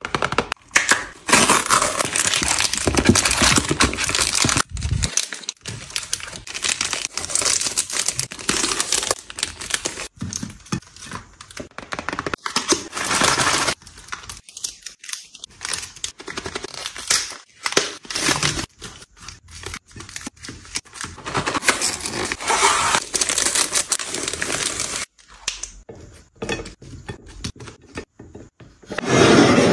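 Plastic chocolate-bar wrappers crinkling and rustling as the packets are handled and set down one after another on a ceramic platter, with light clicks and taps between the rustles.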